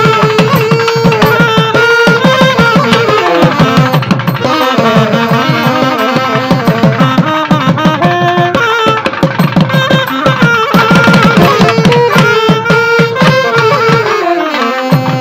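Traditional South Indian music: a reed-like wind instrument plays a melody of held and sliding notes over fast, continuous hand-drum strokes. The melody dips and the drumming thins briefly near the end.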